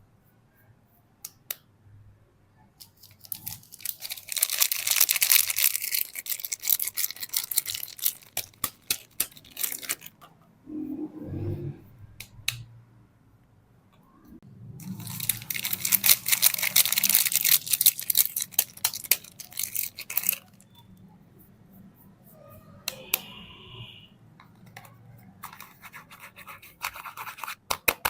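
Soap packaging being opened by hand: two long spells of rapid crinkling and scratching, each several seconds long. Scattered clicks and a short low thud fall between them.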